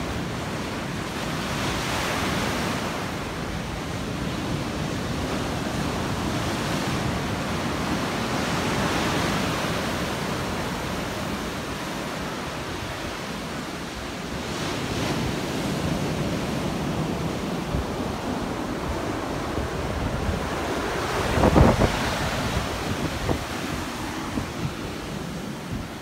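Ocean waves breaking and washing up a sandy beach in slow rolling swells, with wind buffeting the microphone. Near the end a short, loud low rumble of wind or handling hits the microphone.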